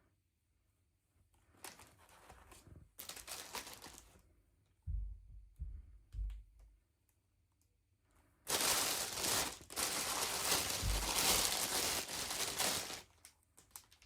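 Toy packaging being handled and opened: crinkling and tearing noises in bursts, a few low bumps about five to six seconds in, and a longer, louder stretch of tearing and crinkling in the second half.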